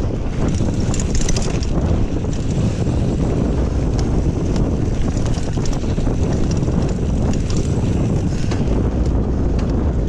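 Wind buffeting a GoPro microphone while a Kona Honzo hardtail mountain bike is ridden over rough singletrack, with frequent small clicks and rattles from the bike and trail all through.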